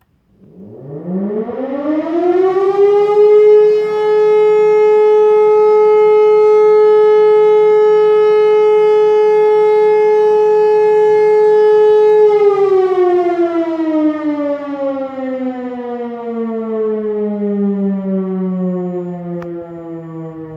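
E57 electro-mechanical civil-defence siren sounding a test alarm. It winds up from silence over about three seconds, holds one steady, loud tone, and after about twelve seconds the pitch slowly falls as the rotor runs down.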